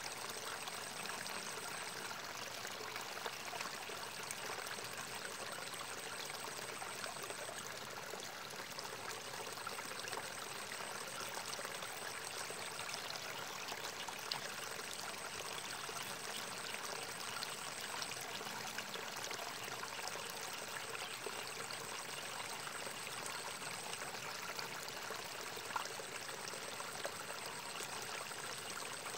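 Water trickling and running steadily through a small irrigation ditch.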